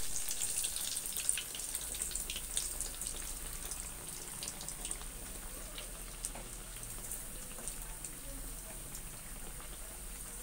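Egg-and-breadcrumb-coated bread slices deep-frying in hot oil in a kadai: a dense crackle and sizzle of oil bubbling around the bread, loudest at the start and settling to a steady level after a few seconds.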